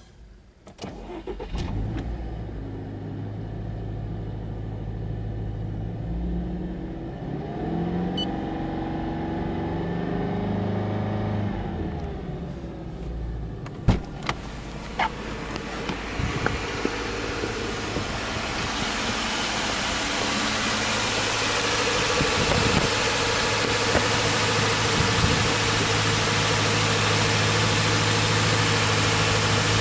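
Subaru Impreza Sport 2.0i's 2.0-litre flat-four boxer engine cranked and started about a second in, then idling steadily. Two sharp clicks come about halfway through, and a steady hiss builds over the idle in the second half.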